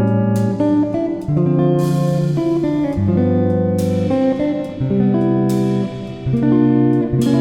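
Background music led by guitar: sustained chords changing every second or so, with occasional sharp struck notes.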